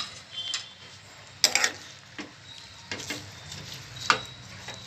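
A metal spatula knocking and scraping against a kadai as chicken in gravy, topped with spring onions and mint, is stirred. There are about six sharp knocks, the loudest about a second and a half in and just after four seconds.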